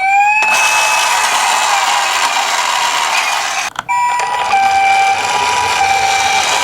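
Japanese ambulance siren: a rising wail levels off into a steady tone over a loud hiss for about three seconds, then after a brief break the two-tone high-low 'pee-poh' alternation plays.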